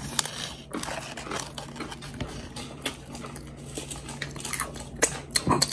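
Eating at a table: irregular crunches and small clicks of food being bitten and chewed, with light knocks of dishes, over a faint steady low hum.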